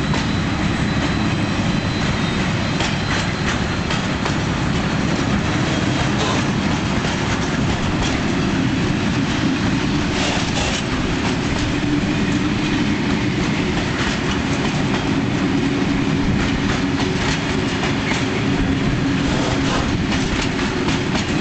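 Freight train of flat wagons rolling slowly past, steel wheels clicking and clattering over the rail joints, over the steady low drone of the M62 diesel locomotive's two-stroke V12 engine working as it pulls the train away.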